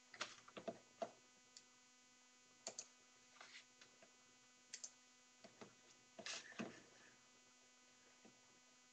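Near silence on the line: a faint steady hum with a scattering of brief, faint clicks and short noises.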